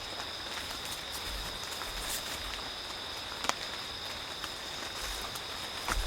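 Steady high-pitched insect drone in two held tones over faint hiss, with a few sharp clicks and soft low thuds.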